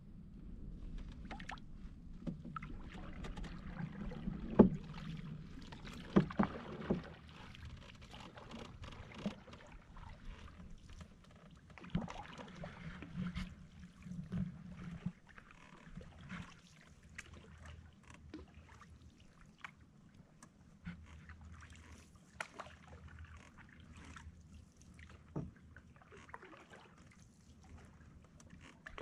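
Canoe paddling: the paddle dipping and pulling through water, with scattered splashes, drips and a few sharp knocks, the loudest about four and a half seconds in.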